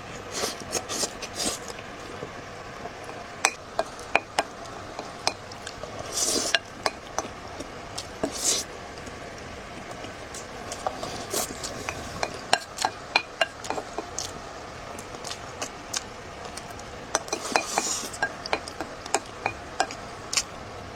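Eating at a table: utensils click repeatedly against a bowl and plate, with a few short slurps of the food.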